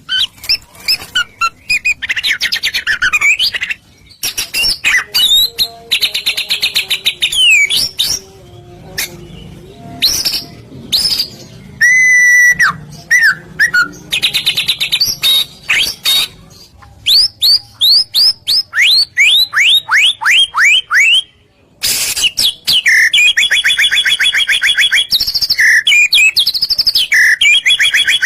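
Songbird lure recording: a busy mix of high chirps, buzzy trills and rapid runs of down-slurred whistle notes, meant to make caged songbirds answer. The song stops briefly twice.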